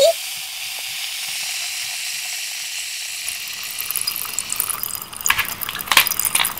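Fizzing sound effect: a steady high hiss like a fizzy drink, breaking from about four seconds in into a scatter of crackling pops and clicks.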